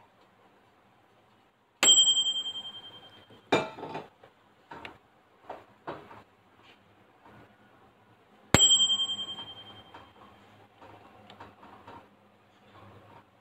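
Microwave oven's timer bell dinging twice, about seven seconds apart, each a single bright ring that fades over a second or so, signalling the end of the cooking cycle. A loud clunk follows about a second and a half after the first ding, with scattered small knocks between.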